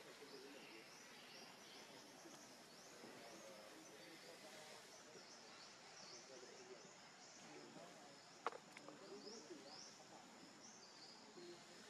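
Near silence: faint outdoor ambience with repeated short, rising high chirps and a low murmur, broken by a single sharp click about eight and a half seconds in.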